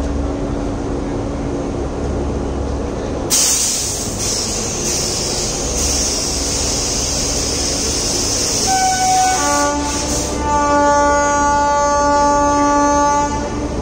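Electric locomotive of an LHB express rolling slowly into a platform, humming steadily. A loud hiss starts suddenly about three seconds in and lasts several seconds. Near the end the locomotive's horn gives one long blast.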